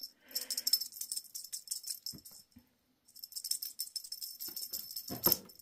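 Small bell on a cat toy jingling in quick shakes, in two spells with a short break between them, with a brief voice-like sound near the end.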